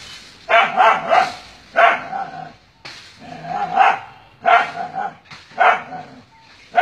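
A dog barking repeatedly at a snake it is fighting, barks coming about once a second, some in quick pairs.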